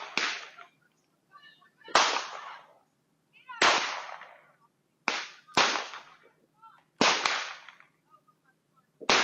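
Fireworks exploding: about seven sharp bangs at uneven intervals, each fading away over half a second to a second.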